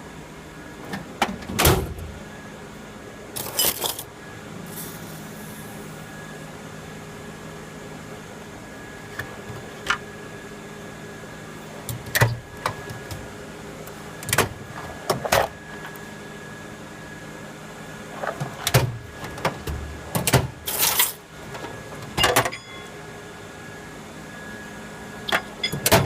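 Short metallic knocks and clicks from a steel roller tool chest being handled, its drawers sliding and shutting, over a steady low hum. The knocks come singly and in small clusters, about two seconds in and again several times in the second half.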